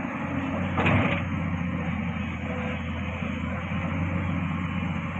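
Heavy diesel machinery of a large hydraulic mining excavator running steadily under a low hum. About a second in comes a short, louder burst of noise.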